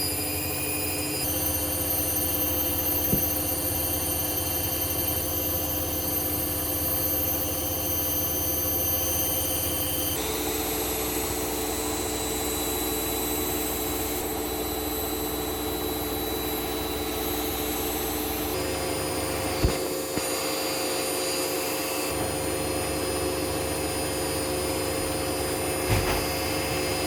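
Hoover One Touch washing machine on a high-speed spin: a steady motor whine made of several held tones that shift pitch abruptly three times, with a few short knocks.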